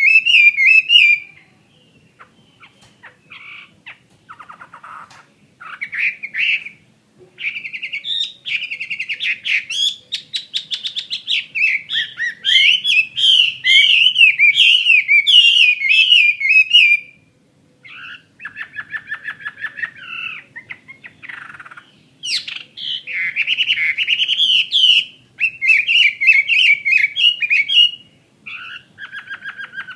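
Chinese hwamei singing: loud, varied warbling phrases with some fast rattling trills, broken by a few short pauses.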